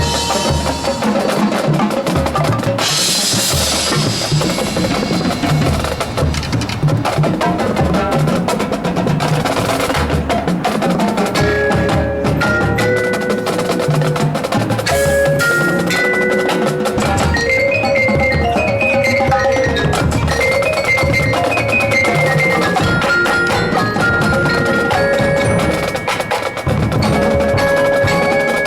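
High school marching band playing its field show, the percussion to the fore: drums under pitched mallet instruments, with a bright crash about three seconds in.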